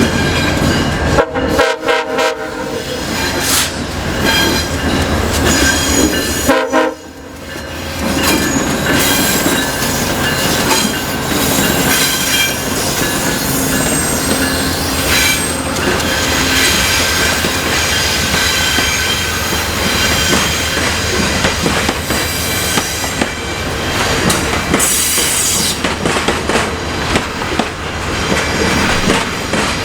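VIA Rail passenger train sounding two short horn blasts a few seconds apart, then rolling past with wheels clacking over the rail joints and squealing.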